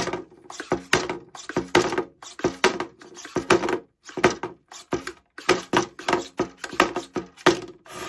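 Small 3D-printed flipper combat robot driving and firing its flipper in short bursts, about two a second, its motors whirring briefly and its body clacking and knocking on the wooden arena floor as it tips and rights itself.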